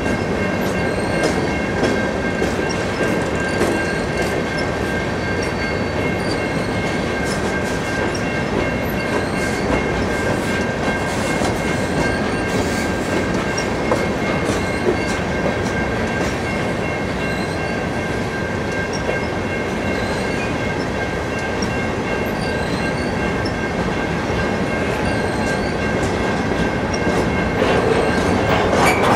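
Loaded rock-train hopper cars rolling past in reverse. The steel wheels clack over the rail joints, with a steady high-pitched wheel squeal running under it.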